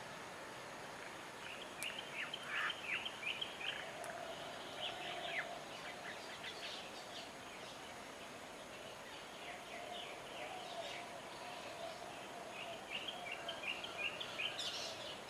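Parrots chirping in short, quick high calls, in two bursts, one early and one near the end, over steady background noise.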